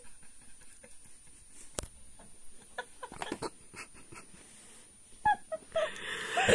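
Light clicks and knocks of a phone being handled and moved, then, about five seconds in, a young woman's breathy giggling that grows louder near the end.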